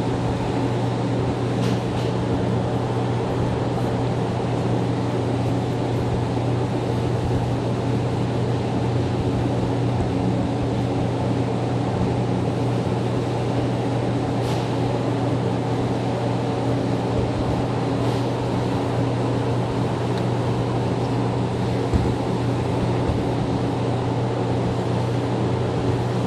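Mexico City Metro NM-79 rubber-tyred train heard from inside the car while running: an even rumble with a strong, steady low hum.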